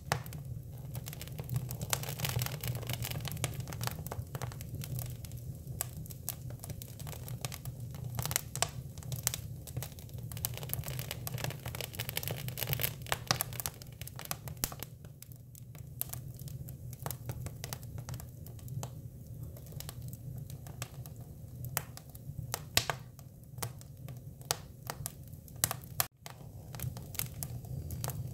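Hinoki (Japanese cypress) wood burning, crackling with many irregular sharp pops over a steady low hum.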